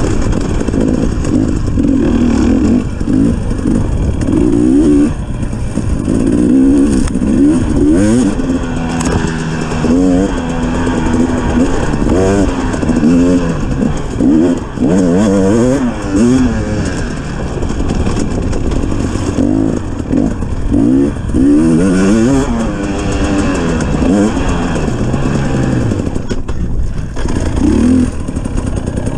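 250-class dirt bike engine running hard under the rider, its pitch rising and falling over and over as the throttle is worked and gears are changed along a rough trail. Heard close up from a camera mounted on the bike.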